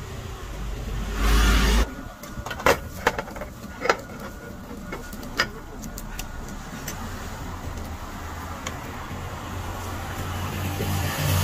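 Busy market-street traffic noise with a vehicle going by: a loud rush of noise about a second in, four sharp knocks a few seconds later, then a low engine rumble building toward the end.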